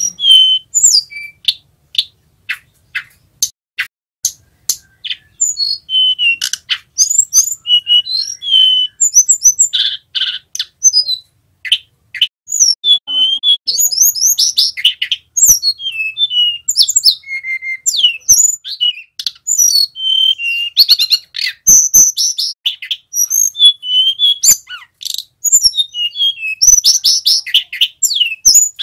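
A male tledekan gunung, the hill blue flycatcher, singing a long, varied song of quick high whistled notes and rolling trills. Sharp clicking notes come in the first few seconds.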